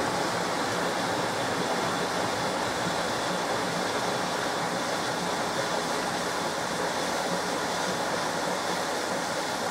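SMEG 11 kg washing machine running with a steady, even rushing noise, like water.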